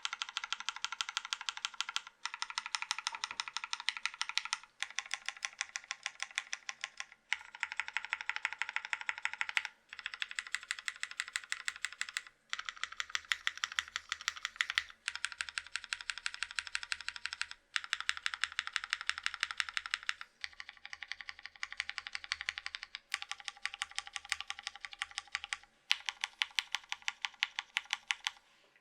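Custom Matrix 2.0 ADD VKG mechanical keyboard, top-mounted forged carbon fiber plate with lubed and filmed vintage Cherry MX Black linear switches and GMK doubleshot keycaps, being typed on fast. The keystrokes come in quick runs of about two and a half seconds, each broken by a brief pause.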